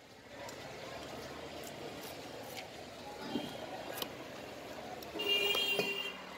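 Handling and cutting a large pangas catfish on a wooden chopping block: a few short, sharp knife taps and clicks over steady street background noise. About five seconds in, a loud held tone lasting under a second stands out above the rest.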